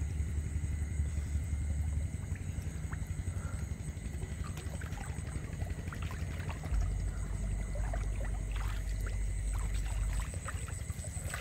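Small splashes and ticks of wading through shallow water among reeds, over a steady low rumble and a constant high insect whine.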